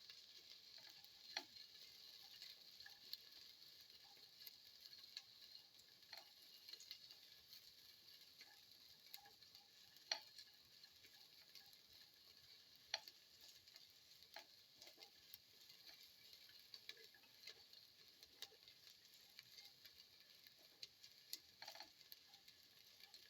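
Garlic and shallots faintly sizzling in hot oil in a pan while being sautéed, with occasional clicks of a stirring utensil against the pan.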